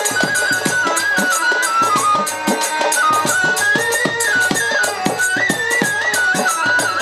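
Violin playing a stepping folk melody in a Bengali pala gan style, over a quick, steady percussion beat.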